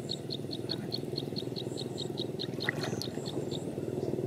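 A calling insect chirping in an even train of short, high chirps, about five a second, over a steady low noise.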